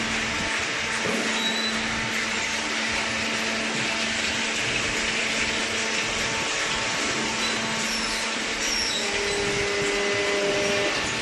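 Hydraulic cardboard baler running: a steady motor-and-pump hum over an even hiss, with the tone shifting about nine seconds in.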